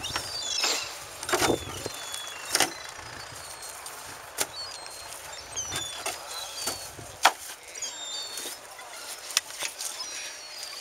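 Fishermen handling nets, crates and a bucket beside a beached fishing boat: scattered sharp knocks and clatter over a steady hiss of wind and surf, the sharpest knock about seven seconds in. Short high chirps come now and then.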